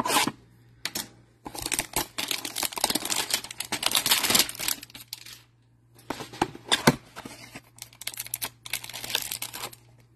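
A cardboard Panini Prizm hanger box of trading cards being handled and torn open: two long stretches of crinkling, scraping and tearing with a few sharp clicks between them.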